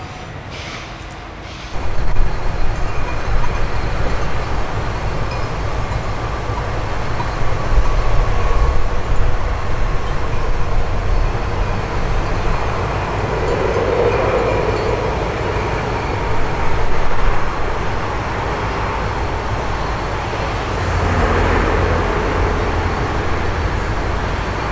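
Südostbahn Traverso electric multiple unit (a Stadler Flirt) running across a stone-arched viaduct, heard from a distance as a steady, low rumbling noise that swells and fades a few times.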